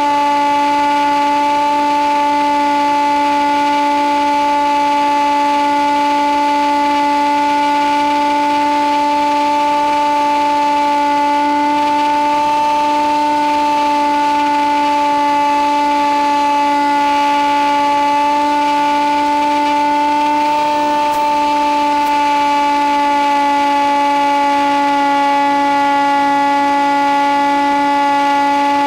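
Electric motor and propeller of an FPV model plane (Nitroplanes Easy Hawk), picked up by the onboard microphone, running at steady cruise throttle: a constant buzzing whine whose pitch lifts slightly twice.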